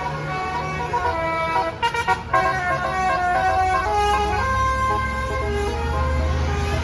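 Basuri multi-tone 'telolet' bus horn on roof-mounted trumpets, playing a tune of short notes that change pitch, with the bus engine running underneath.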